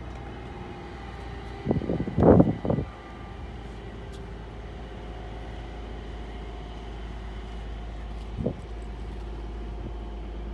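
Car engine idling steadily, with a burst of loud rustling knocks about two seconds in and a short one near the end.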